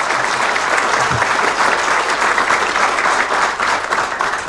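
Large seated audience applauding: a steady, dense patter of many people's hand claps.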